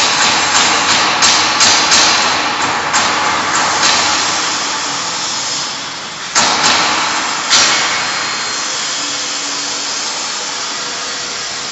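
Small stainless-steel sausage filling machine for casing-free sausage running with a steady mechanical noise. There is a quick run of knocks over the first few seconds and two sharper clacks about six and a half and seven and a half seconds in, as minced meat is pushed out through the nozzle.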